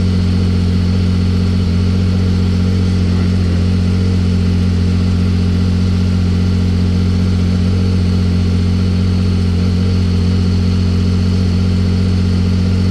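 Can-Am Maverick R side-by-side's turbocharged three-cylinder engine idling steadily, with no change in revs.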